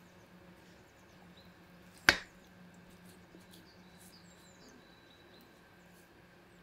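Faint outdoor ambience with small birds chirping and a low steady hum, broken about two seconds in by a single sharp knock.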